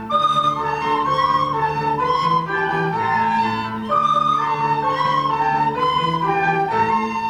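Instrumental music: a melody of changing notes over long held low notes.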